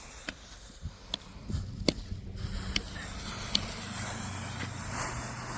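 Jet ski engine running slowly, a steady low hum, with a few sharp clicks over the first few seconds.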